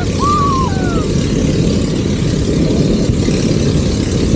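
Wind rushing over the microphone of a camera carried aloft under a parasail: a loud, steady low rumble, with a brief wavering high tone about a quarter second in.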